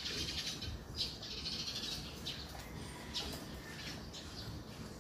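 Birds chirping: a string of short, high chirps over a faint low background hum.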